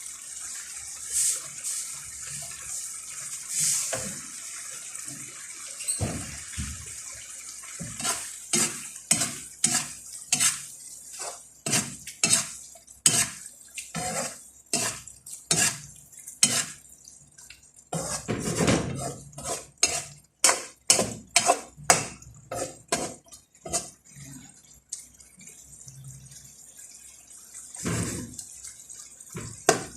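A metal spoon knocking and clinking against a cooking pot, many quick irregular strikes as a fava bean and carrot soup is stirred. For the first several seconds there is only a steady hiss, before the clinking starts.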